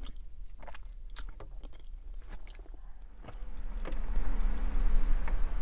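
Close-up chewing of a mouthful of grilled chicken and broccoli Alfredo, with small clicks of a plastic fork on the plate. A low rumble swells about four seconds in.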